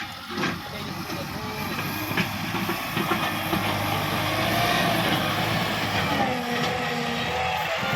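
Kubota MU5501 tractor's four-cylinder diesel engine running under load, getting louder over the first few seconds, with sharp clanks and knocks, and wavering whining tones in the second half.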